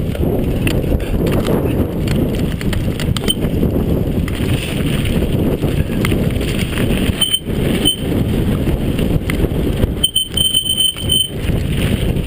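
Mountain bike rolling down a rough dirt and gravel trail: a steady rumble of tyres on the ground, with the bike rattling over bumps.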